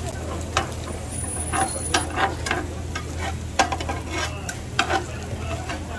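Food frying on a hot griddle, with irregular sharp clicks and scrapes of a cooking utensil against the metal surface, about a dozen knocks over a few seconds, over a steady low hum.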